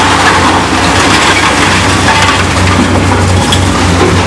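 Caterpillar 365C hydraulic excavator's diesel engine running steadily while its bucket scrapes through and crushes broken concrete demolition rubble, a dense crackling crunch over the engine hum.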